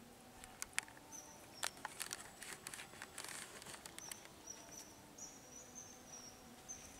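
Faint water sounds from a man wading in a pond and gathering a wet cast net: scattered small splashes and drips in the first half. Short high bird chirps repeat through the second half.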